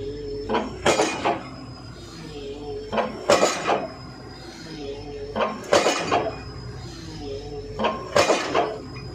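Excavator-mounted hydraulic pile hammer striking the top of a pile, four heavy metallic clangs about two and a half seconds apart, over the steady hum of the machine's engine.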